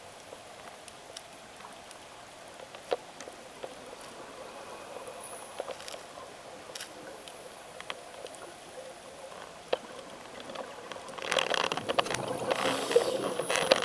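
Underwater sound of a scuba dive: a faint hiss with scattered small clicks, then near the end a loud rush of gurgling bubbles as the diver breathes out through the regulator.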